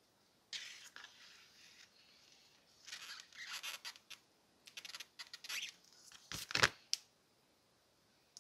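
Needle-nose pliers gripping and squeezing the corer's aluminium handle socket to crimp it onto the wooden handle: a series of short scraping, scratching bursts of metal on metal, the sharpest and loudest pair near the end.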